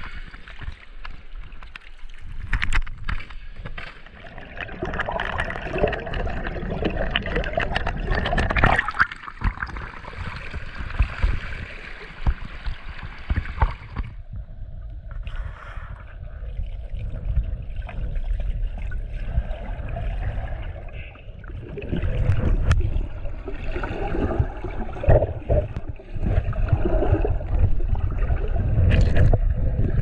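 Creek water gurgling and sloshing right at the microphone, with an irregular low rumbling and scattered small knocks; the sound turns duller about halfway through.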